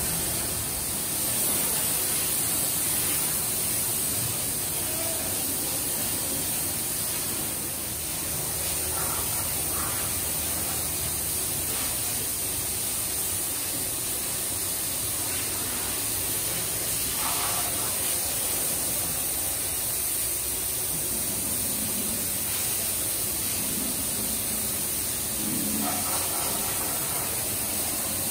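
Compressed-air spray gun hissing steadily as liquid glaze is sprayed onto a ceramic squat toilet pan.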